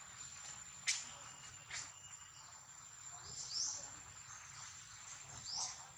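A steady, high insect drone, with two sharp clicks about a second in and two short rising chirps later on.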